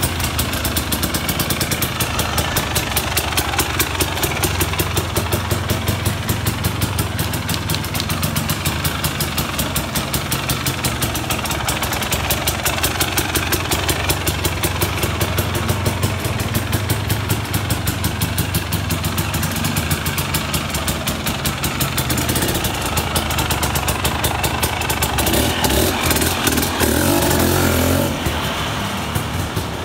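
Husqvarna dirt bike engine idling with a steady pulsing beat, then revving louder and pulling away near the end.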